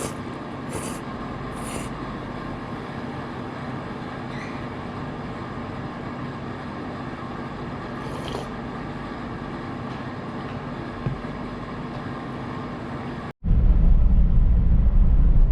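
Steady running noise of a vehicle on the move, with a few short hisses in the first two seconds and again about eight seconds in. About thirteen seconds in it cuts abruptly to loud music.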